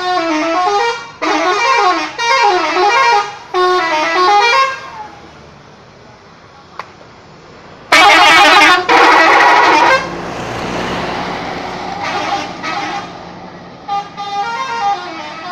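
A bus's telolet horn plays its warbling multi-note tune in several repeated phrases. About eight seconds in it gives a louder, denser blast of about two seconds. The tune comes back near the end.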